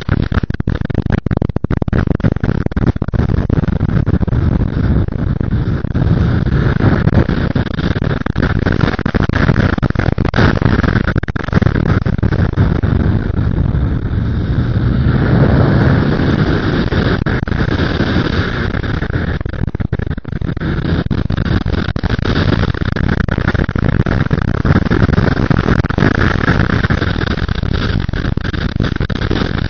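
Yamaha XSR motorcycle running at speed, its engine noise mixed with heavy wind buffeting on the bike-mounted microphone.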